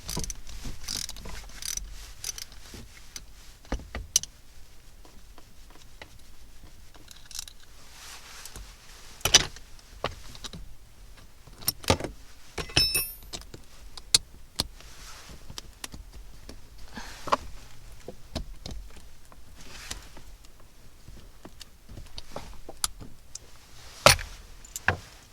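Metal hand tools clinking and knocking against the shifter while a 12 mm bolt is undone with a socket and wrench: irregular sharp clicks, a short ringing metallic clink about halfway, and the loudest knock near the end.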